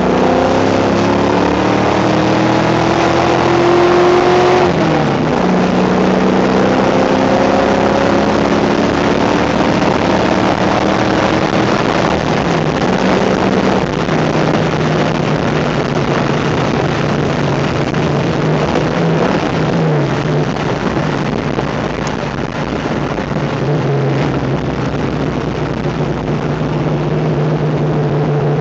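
Car engine heard from inside the cabin, accelerating hard and rising in pitch, with a drop at each gear change about 5 and 13 seconds in. It then holds a steady cruising note over road and wind noise.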